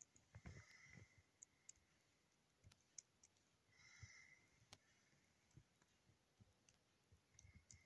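Faint, scattered clicks of Acer Chromebook keys being pressed to enter the Ctrl+Alt+Shift+R keyboard shortcut for a Powerwash factory reset.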